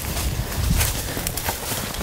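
Footsteps through dry leaves and brush, with short crunching steps and rustling, over a low rumble.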